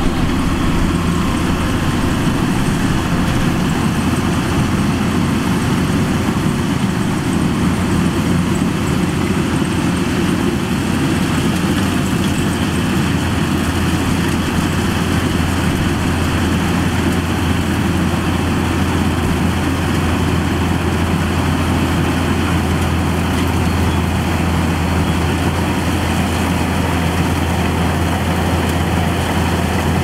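Kubota DC-105X combine harvester's diesel engine running steadily: a constant low drone under a dense, even machine noise that does not change.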